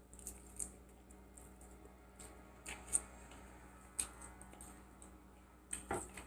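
Close-miked eating sounds: scattered small clicks and smacks of chewing and handling food, with the loudest near three seconds and near the end, over a faint steady hum.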